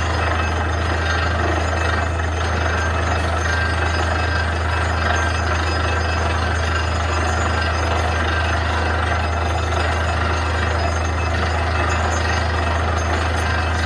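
Borewell drilling rig running steadily: a loud, even machine noise over a constant low hum.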